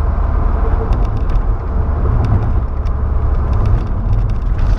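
Road and engine noise inside the cab of a Volkswagen Saveiro pickup on the move: a steady low rumble with scattered faint clicks and ticks.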